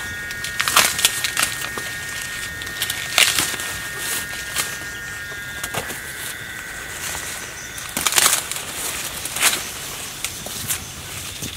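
Ears of corn being snapped off their stalks by hand: about four sharp cracks among the rustle of corn leaves.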